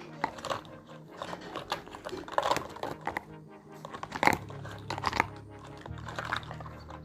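Irregular clicks and taps of small toy kitchen pieces being handled, the sharpest about four seconds in, over soft background music.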